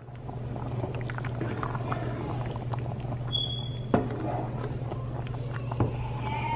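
A pot of okra soup simmering on the stove, with a crackling, bubbling sound over a steady low hum and a couple of sharp clicks.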